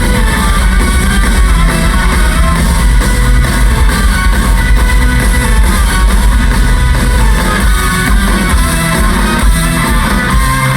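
A rock band playing live, loud: electric guitar over bass and drum kit.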